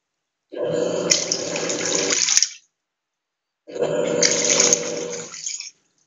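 Electrolux LTE06 top-loading washing machine agitating during the wash stage: water and clothes churning and sloshing with a steady hum beneath. It comes in two strokes of about two seconds each, with a silent pause of about a second between them.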